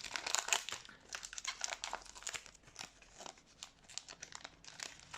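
2020 Donruss football trading cards being handled and flipped through by hand, a quiet run of short, irregular slides and flicks of card stock.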